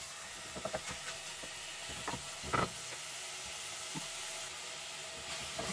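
Ground meat frying quietly in an aluminium pot, a steady sizzle, with a few light knocks of a wooden spatula against the pot, the loudest about two and a half seconds in.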